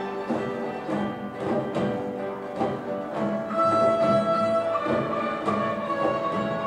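Children's school orchestra playing live: bowed violins and cello with strummed acoustic guitars keeping a steady pulse. A melody note is held out clearly from about three and a half seconds in.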